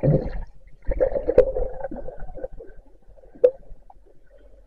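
Muffled underwater rumbling and gurgling, the sound of a diver moving through river water as heard by a submerged camera. It is broken by a sharp click about a second and a half in and another about three and a half seconds in.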